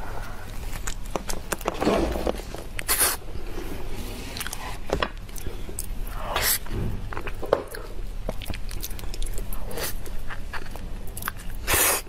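Close-miked eating of soft durian flesh: wet, sticky chewing with many small mouth and lip clicks, and a few louder short smacks spread through.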